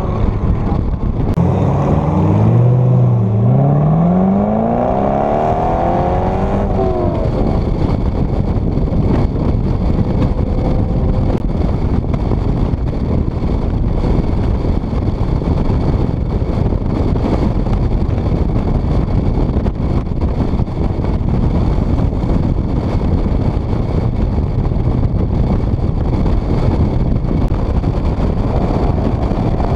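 Car engine accelerating hard, its revs climbing for about five seconds a couple of seconds in, then steady wind and road noise of cruising at highway speed with the top down.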